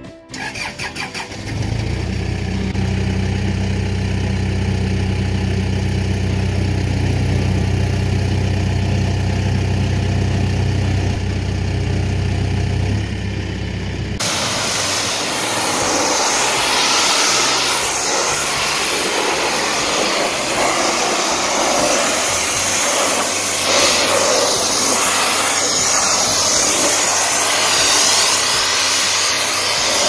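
An engine starts and settles into a steady run. After about fourteen seconds it gives way to the loud, even hiss of a hot-water pressure washer jet spraying the rusty steel of a backhoe wrist attachment.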